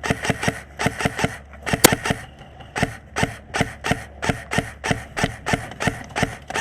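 Running footsteps at about four strides a second, each footfall a short thud with gear rattling along, and one sharper crack a little under two seconds in.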